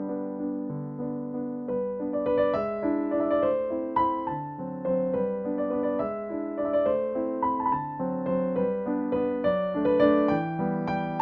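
Background piano music: a gentle melody of struck notes over a repeating bass pattern.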